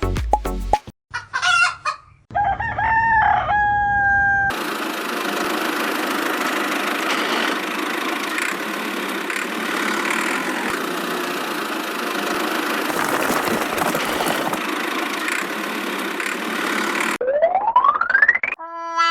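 A rooster crows once, a few seconds in. A long steady stretch of noise follows. Near the end a whistle glides steadily upward in pitch.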